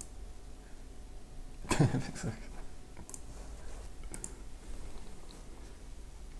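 A few sharp computer mouse clicks. About two seconds in there is a brief, louder vocal sound.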